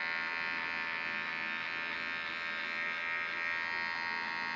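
Cordless hair clipper running with a steady electric hum while its blade is worked over short hair at the nape.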